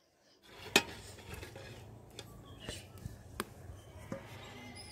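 Pot of chana dal in milk cooking over a dung-cake fire in a clay chulha: irregular sharp pops and clicks over a low steady rumble, starting about half a second in.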